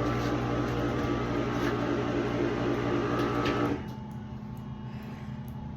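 A furnace's electric motor running with a steady hum, then cutting off abruptly about two-thirds of the way through, leaving a quieter, lower hum.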